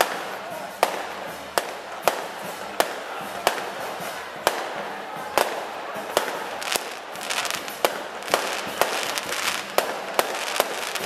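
Aerial fireworks going off: a rapid series of sharp bangs, roughly two a second, over a steady crackle from the bursting shells.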